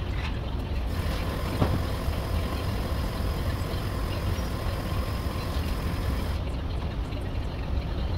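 Steady low rumble of shop machinery, joined about a second in by a steady hiss with a faint whine that stops about six seconds in; a single sharp click near the start.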